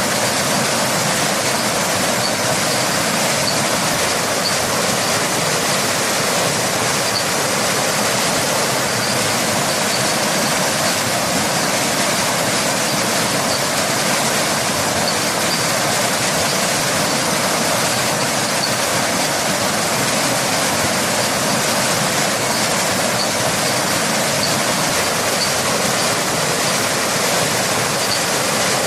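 Steady rushing of a waterfall, an even wash of falling water that does not change.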